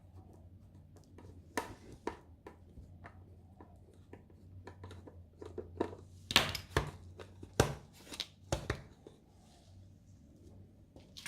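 Small clicks, taps and knocks of screws being taken out of a multimeter's plastic case and the parts being handled, sparse at first and busiest about six to nine seconds in.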